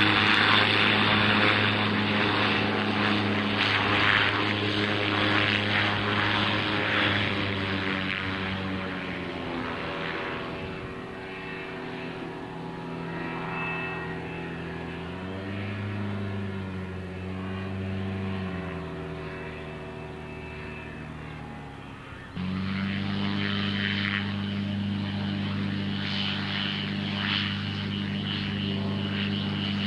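Small pusher-propeller light aircraft's engine and propeller droning; its pitch drops about eight seconds in and wavers in the middle, then the sound turns abruptly louder and steady about 22 seconds in, with the aircraft close by low over the grass field.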